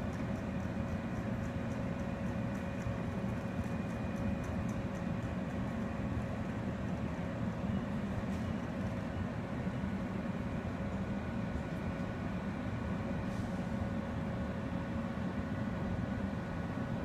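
E653 series electric multiple unit standing at the platform with its onboard electrical equipment running: a steady hum and low rumble with a few constant high tones over it.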